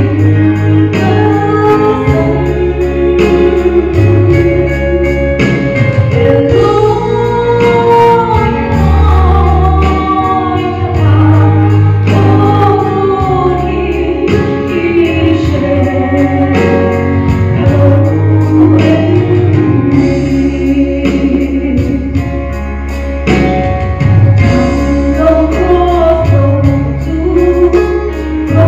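Mizo gospel song: a woman sings the melody over band backing with a steady bass line.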